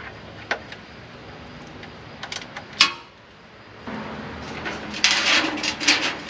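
A few metallic clicks from a ratchet and socket on the oil-pan drain plug. From about four seconds in comes a rough scraping as the metal drain pan is slid across the floor into place under the plug, loudest near the end.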